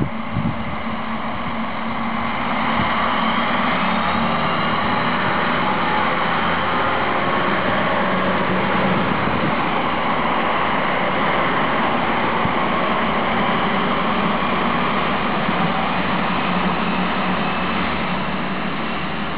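Several coupled Stadler Regio-Shuttle RS1 diesel railcars passing close by, their underfloor diesel engines running over the rumble of wheels on rail. The sound swells about two seconds in, holds steady, and eases slightly near the end as the train draws away.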